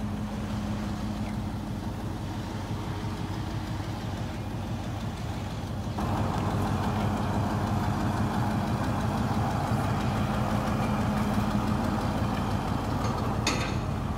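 Toyota Land Cruiser GXR V6 engine idling steadily, louder from about six seconds in. A short click near the end.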